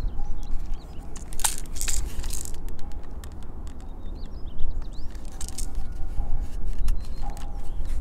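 Close handling noise from fingers rubbing and tapping on the plastic grips and frame of a Toystar M1911A1 airsoft pistol: a run of small clicks and scrapes, with two louder rustling bursts about 1.5 and 5.5 seconds in, over a low rumble.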